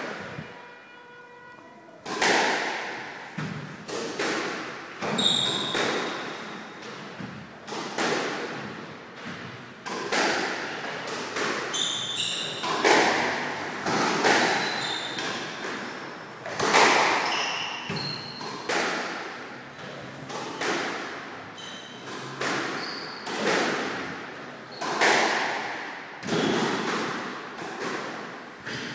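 Squash rally: the racquet striking the ball and the ball smacking the court walls, about one sharp hit a second, each echoing in the enclosed court. The hits start about two seconds in and stop shortly before the end.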